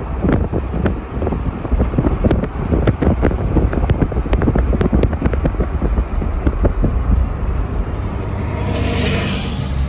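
Car driving along a road, with a low rumble of engine and road noise and irregular buffeting thumps of wind on the microphone at the car's side window. A brief louder rush of air comes about nine seconds in.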